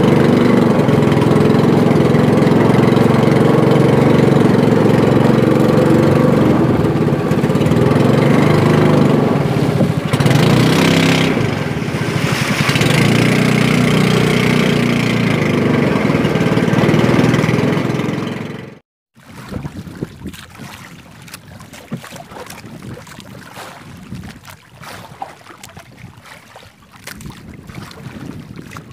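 Small boat engine on an outrigger fishing boat running steadily, then stopping abruptly about two-thirds of the way through. After that come wind on the microphone, water against the hull and light scattered knocks as the line is handled.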